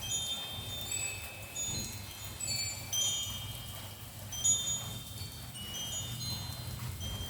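Wind chime stirred by a gentle breeze: high ringing notes struck irregularly, several at a time, each ringing on after it is struck, over a low steady rumble.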